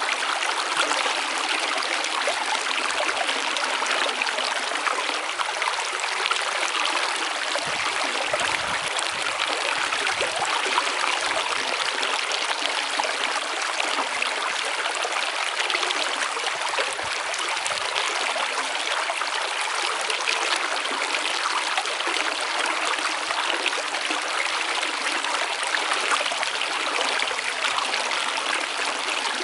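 Stream water running and trickling steadily, an even splashing with no pauses.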